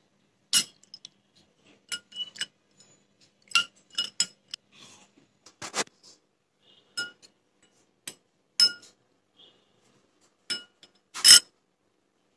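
Metal spoon stirring iced coffee in a drinking glass, clinking against the glass and the ice cubes. About a dozen sharp, irregular clinks, each ringing briefly, with the loudest near the end.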